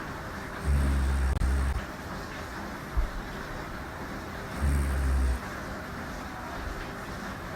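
A woman snoring: two low snores about four seconds apart, each about a second long, over a steady background hiss, with a brief click between them.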